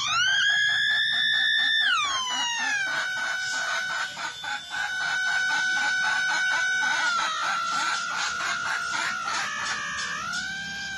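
Electronic tone from a homemade op-amp tone mixer played through a small loudspeaker, its pitch changing as the potentiometer knobs are turned. It glides up at the start, drops about two seconds in, holds steady, shifts down again around seven to eight seconds, and rises near the end, with a rapid pulsing through the middle.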